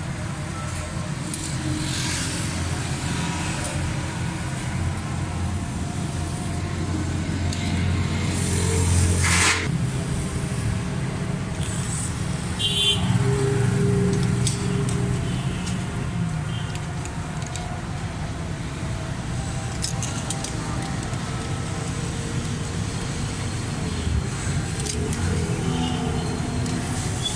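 A motor vehicle engine running steadily, louder for a few seconds twice, with a few sharp metal clinks from a spanner and screwdriver adjusting the valve tappets.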